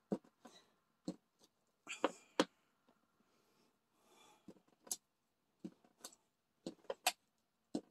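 Small wood-mounted rubber stamps tapped down again and again onto paper over a plastic tray, blotting off leftover ink: sharp, irregular clicks and knocks, about a dozen, with quiet gaps between.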